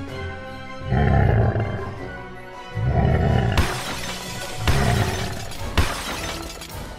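Background music with dubbed-in cartoon dinosaur roar sound effects, three roars about two seconds apart. A crashing, shattering sound effect starts about halfway through, with sharp hits near the end, laid over toy cars knocking the dinosaurs down.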